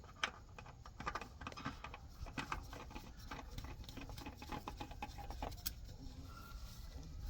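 Faint, irregular clicks and light scrapes of a new oil filter being threaded and spun onto its mount by hand.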